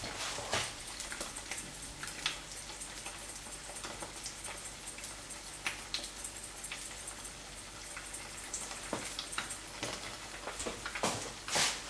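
Eggs frying in oil in a non-stick pan: a steady faint sizzle with scattered small pops and crackles, and a louder knock near the end.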